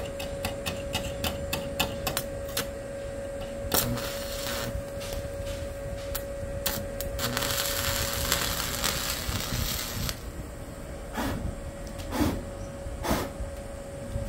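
Stick (arc) welding with a small inverter welder on a steel gate hinge. A fast run of clicks, about four a second, as the electrode is tapped to strike the arc, then the arc crackling and sizzling steadily for about three seconds, then a few sharp cracks near the end.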